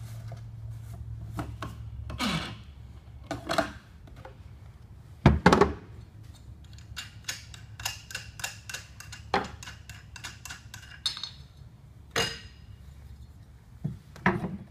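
Objects being handled in a small room: irregular knocks and thuds, one heavy thump about five seconds in, and a run of light clicks and clinks after it, over a low steady hum.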